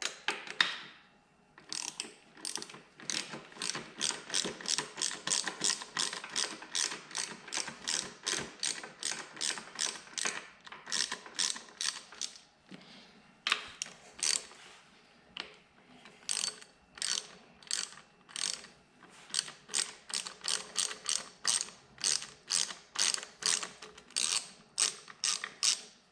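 Hand ratchet wrench clicking in quick back-and-forth strokes as it runs out engine bolts that were loosened in sequence, with short pauses between bolts.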